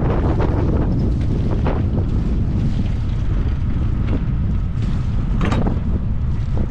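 Steady wind buffeting the microphone aboard a sailing yacht under way, a loud low rumble, with two brief hissing rushes, one about two seconds in and one near five and a half seconds.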